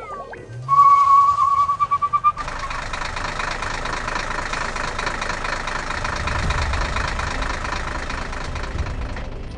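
A loud steady high tone for about two seconds, then a vehicle engine sound effect running steadily, growing heavier in the low end later on.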